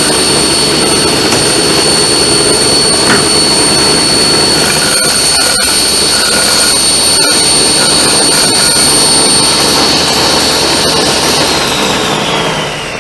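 Table saw running with a steady high whine as its 235 mm blade is raised up through a blank insert plate, cutting a zero-clearance slot. About eleven and a half seconds in the saw is switched off and the whine falls away as the blade spins down.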